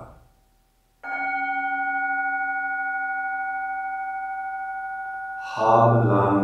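A brass singing bowl held on the palm is struck once about a second in and rings on with several steady tones, fading slowly with a slight wavering in level. Near the end a man's voice comes in over the ringing.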